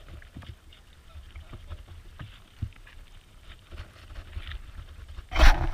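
Sheep nosing and nibbling grain right around the camera: scattered small clicks and knocks over wind rumble on the microphone, then loud scraping knocks close to the microphone near the end.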